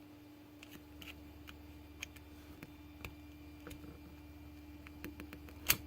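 Small metal clicks and ticks, scattered and irregular, of hand tools working at the retaining clip on a lock cylinder, with one sharper click near the end. A faint steady hum runs underneath.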